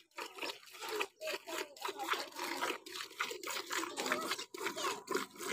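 Hand-milking a Kankrej cow: milk squirting from the teats into a steel pail in a quick, uneven rhythm, about three squirts a second.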